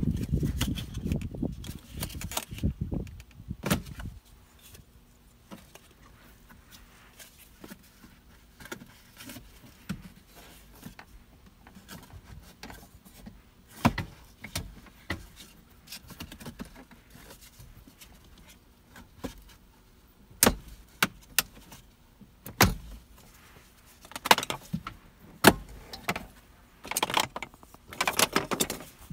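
Plastic dashboard trim around a Honda Ridgeline's radio being pried loose with a plastic pry tool. There are scattered clicks and snaps as the trim clips let go and the panel shifts, with rustling handling noise for the first few seconds.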